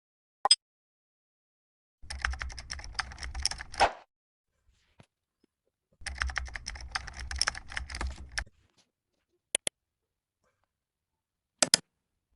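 Computer keyboard typing: two bursts of rapid keystrokes, each about two seconds long, with a few single clicks before, between and after.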